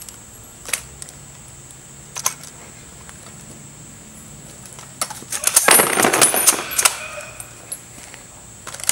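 Spent brass cartridge casings clinking as an AmmoUp brass-pickup tool is pressed down on them and its tines catch them. A couple of single clicks, then a dense rattle of brass about five seconds in lasting around two seconds, and a few more clicks near the end.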